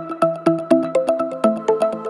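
Background electronic music: short plucked synth notes on a quick, steady pulse of about four a second, the melody stepping to lower notes about a second in.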